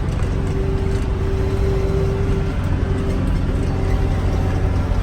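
Tractor engine running steadily: a constant low drone with a steady hum laid over it that drops in and out.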